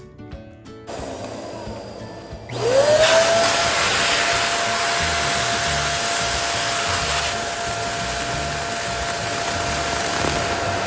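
Electric balloon inflator starting up about two and a half seconds in: its motor quickly rises in pitch, then runs steadily with a loud rush of air.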